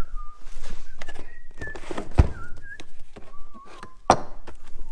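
Engine parts and boxes being handled and set down, with a few knocks, the loudest about two seconds in and another about four seconds in. A thin, wavering whistled tone comes and goes.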